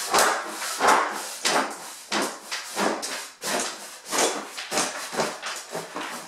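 Camp cot being worked by hand: the fabric rustling and the frame knocking, about one to two knocks a second, as the fabric is pushed down and stretched over the frame.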